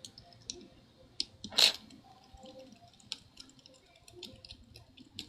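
Light, scattered clicks and taps of small precision tools being handled on an open laptop, with one short, louder rustle about a second and a half in.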